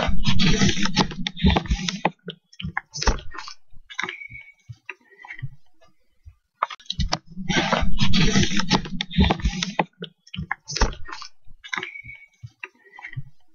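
Camera handling and rustling noise with sharp clicks and breathy hissing bursts, the same stretch played twice. The uploader presents the hissing as a whispered voice, an EVP saying "Now! She can't hear you so shhh".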